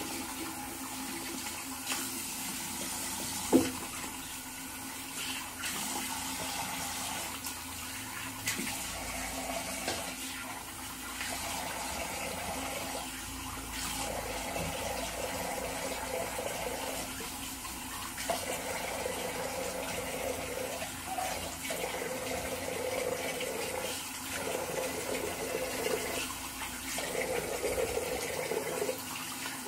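Tap water running steadily into a bathroom sink as shaving lather is rinsed off, the sound of the stream shifting every few seconds. One sharp knock about three and a half seconds in.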